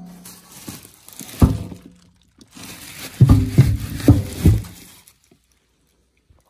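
Sharp knocks with a short metallic ring as the brake lathe's shipping pallet crate is pried and knocked open: one knock, then four in quick succession over scraping and rustling, stopping about five seconds in.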